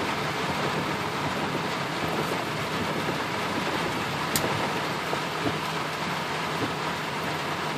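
Heavy rain beating on a car's roof and windshield, heard from inside the cabin as a steady hiss, with one sharp tick about four and a half seconds in.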